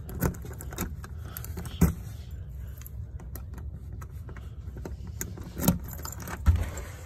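A bunch of keys jangling while a key is tried in a door lock, with many small metallic clicks and rattles. A few louder knocks come about two seconds in and twice near the end.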